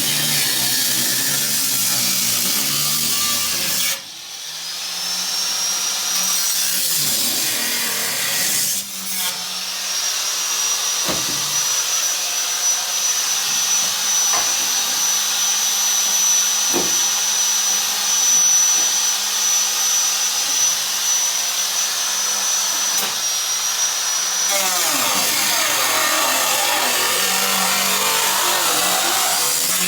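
Power tool cutting the rusted sheet-steel floorpan, with harsh grinding noise throughout. A steady high motor whine spins up about four seconds in and stops abruptly near the end.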